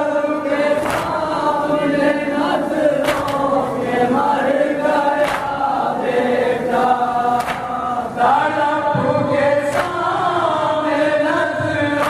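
A group of men chanting an Urdu noha (Shia lament) in unison through microphones, with a sharp chest-beat (matam) strike about every two seconds keeping the rhythm.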